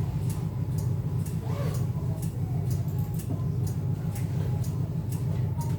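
Car's turn-signal relay ticking in a steady even rhythm, about two to three clicks a second, over the low rumble of the engine and road inside the cabin.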